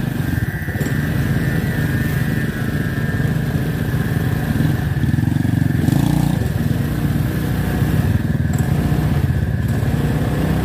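Small motorcycle engine running steadily as the bike rides along a rough dirt path.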